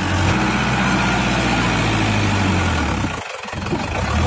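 Farmtrac 6055 tractor's 55 hp diesel engine running steadily at about 1500 rpm under load, pulling in fourth high gear against bricks placed at its tyres. The sound dips briefly about three seconds in.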